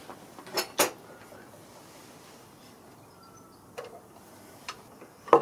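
Two sharp metal clicks close together as a small screw and nut are fitted into the steel drive bar set in the millstone, followed later by a couple of faint ticks.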